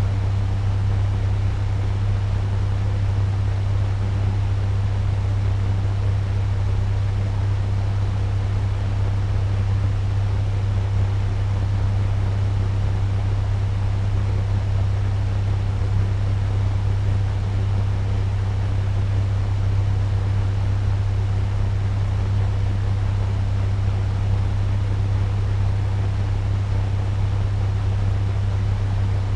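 Turbo fan running steadily at medium speed: an even rush of air over a strong, constant low hum.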